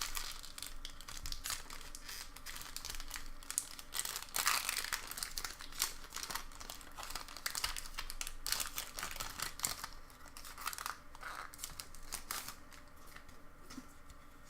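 Foil wrapper of a Pokémon booster pack crinkling and tearing as it is opened and handled: rapid, dense crackling that thins out over the last few seconds.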